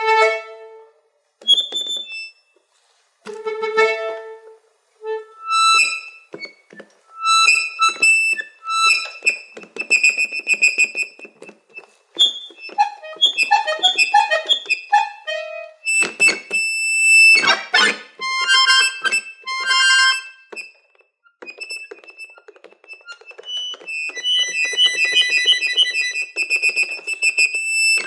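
Solo harmonica playing a piece: short separated phrases and chords at first, then fast runs of notes, and rapidly repeated, trembling notes near the end.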